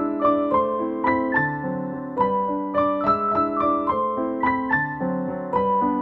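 Soft background piano music: a gentle melody of single notes over held chords.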